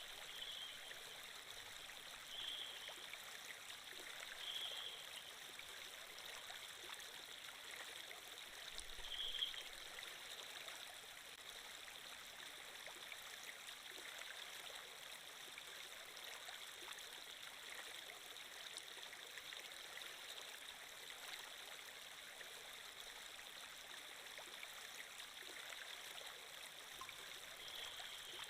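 Steady running water, like a flowing stream, faint and even, with a few short high blips in the first ten seconds.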